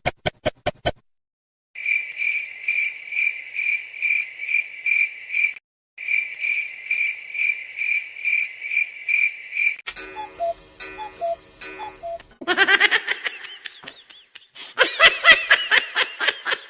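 A run of comedy sound effects. Quick clicks come first. Then a high chirp repeats steadily about three times a second for several seconds, like crickets. Short pitched notes follow, and fast warbling high tones fill the last few seconds.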